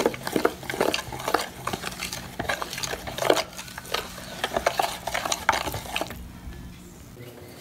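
Spoon stirring a thick flour-and-spice marinade paste in a plastic container: irregular scrapes and clicks against the container's sides, dying down about six seconds in.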